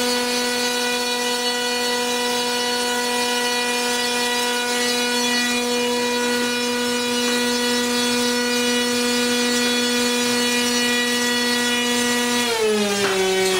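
RC prop drive (an 1800 KV NTM brushless motor) spinning a 7.5-inch propeller through a long drive shaft extension in small ball bearings. It runs with a steady high whine, then throttles back near the end, the pitch dropping.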